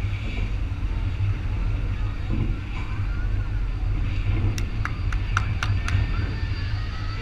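Steady low wind rumble on the microphone with surf and faint crowd voices. About four and a half seconds in comes a quick run of six sharp clicks, roughly four a second.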